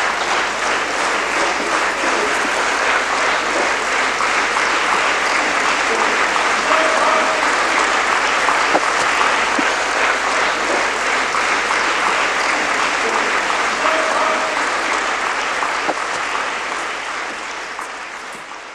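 Audience applauding steadily, a dense patter of many hands clapping, fading out over the last few seconds.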